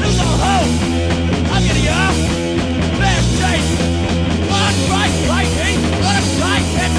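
Early-1980s American hardcore punk song playing loud and dense, without a break.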